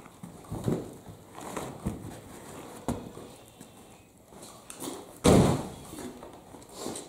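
Boots walking and scuffing on a dirt-and-concrete barn floor while a cut piece of carpet is handled, a few scattered thumps and scrapes, with one loud thump about five seconds in.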